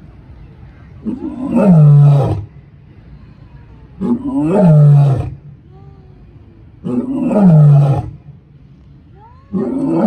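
White lion roaring in a bout of short calls, each dropping in pitch and lasting just over a second, repeated about every three seconds: three full calls, with a fourth starting near the end.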